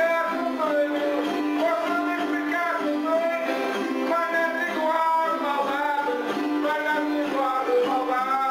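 Portuguese folk music for a despique: two acoustic guitars strummed and plucked in a steady accompaniment, with a wavering, gliding melody line above them.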